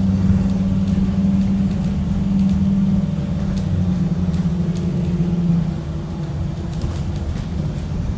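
2018 Blue Bird Vision school bus on the move, heard from inside the cabin: a steady engine drone over road rumble. The engine note dips and quietens about six seconds in, as if the driver is easing off the throttle.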